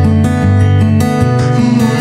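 Background music of strummed guitar chords over the end card.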